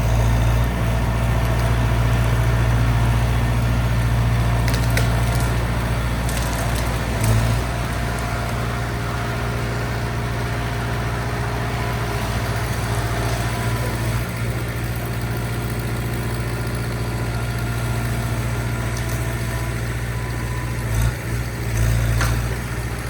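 Skid steer engine running steadily, with a few sharp cracks and snaps of breaking wood.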